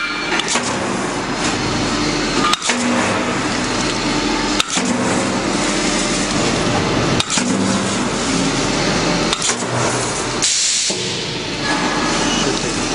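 Automatic sink-welding machine at work on a stainless steel sink and countertop: a steady hiss and hum, with a sharp click every two seconds or so.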